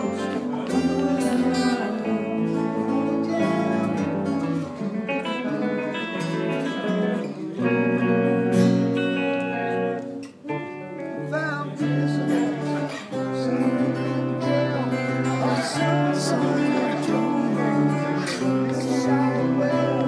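Several guitars, acoustic and electric, playing a chord sequence together, with notes and chords changing every second or two.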